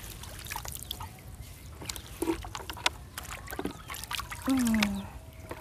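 Water dripping and trickling off a trammel net as it is pulled by hand out of a pond, with scattered small splashes and sloshing around the wader.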